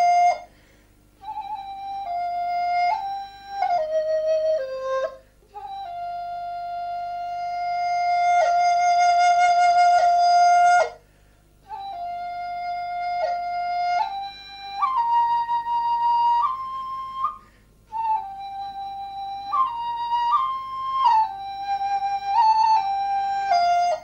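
Background music: a solo flute playing a slow melody of long held notes and short ornamented steps, broken by brief pauses between phrases.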